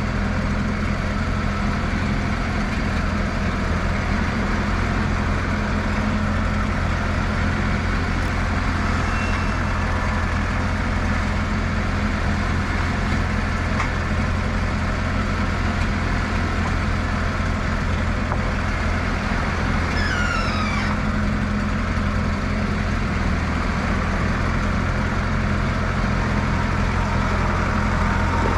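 Wood-Mizer LT15 Wide portable bandsaw mill running steadily, its engine holding an even note throughout.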